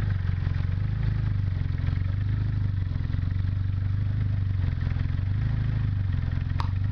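Turbocharged Honda D16 four-cylinder engine idling steadily, heard close up in the engine bay, with a single sharp click near the end.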